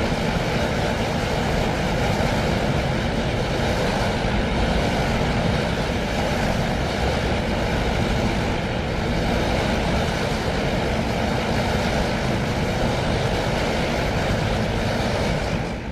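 Designed sci-fi energy-flux sound effect: a steady hushing drone texture that swells gently like waves, fading out near the end.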